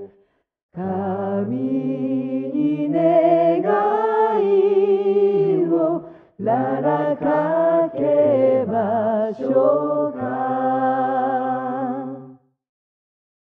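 Unaccompanied singing in a slow chant: two long phrases of held notes with vibrato, the second starting about six seconds in and cutting off about a second before the end.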